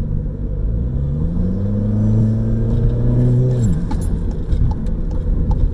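Volkswagen Golf GTI MK7's turbocharged 2.0-litre four-cylinder, breathing through an Injen aftermarket intake, pulling under throttle: the engine note climbs steadily for about two and a half seconds, then falls away abruptly as the throttle is released.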